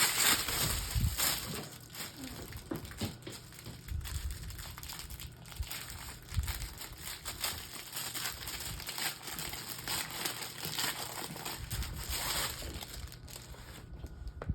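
Plastic packaging crinkling and rustling as it is handled and pulled open, loudest in the first second or two, then quieter crackling.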